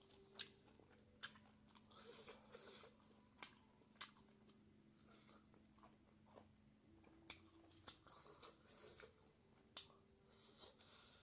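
Quiet close-miked chewing and mouth sounds of someone eating pork and bamboo shoot curry, with a sharp smacking click every second or two.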